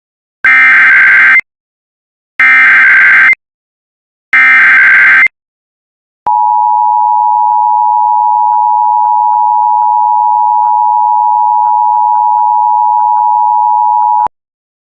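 Emergency Alert System SAME header: three loud one-second bursts of warbling data tones carrying the coded fire-warning message, then the EAS attention signal, a steady two-tone alarm held for about eight seconds that cuts off suddenly.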